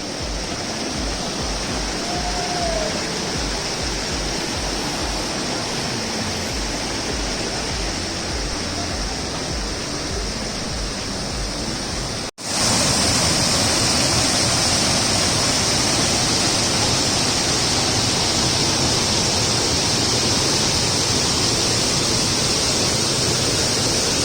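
Steady rush of falling water from a waterfall. About halfway through it drops out for an instant and comes back louder and brighter.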